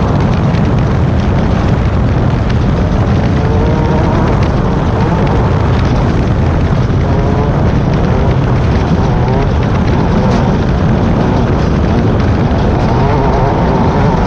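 Class 10 off-road race car's engine running hard, its pitch wavering up and down over a loud, heavy rumble that never lets up.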